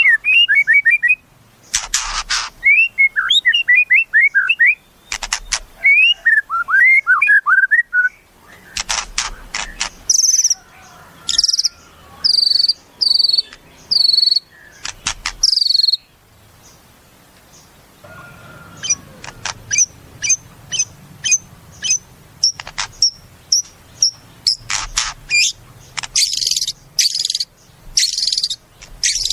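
White-rumped shama (murai batu) singing a varied song: quick rising and falling whistled phrases, harsh rattling notes, and runs of high repeated chirps, with a pause of about two seconds midway.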